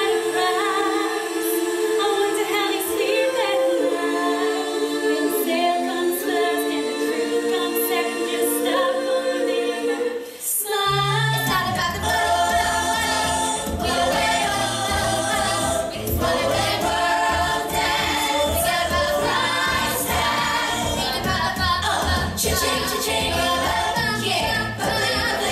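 A group of voices singing in harmony with no accompaniment; about ten seconds in it cuts to an upbeat song with a steady bass beat under the singing.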